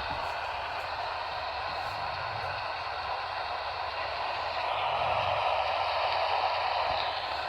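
Static hiss from an AM radio receiver with no station audio coming through. It swells a little louder for a couple of seconds past the middle.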